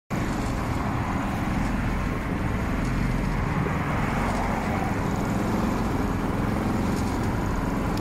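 Predator 3500 inverter generator's single-cylinder four-stroke engine running steadily.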